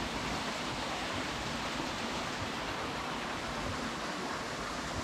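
Steady rush of flowing water, a mountain stream or waterfall, holding an even level throughout.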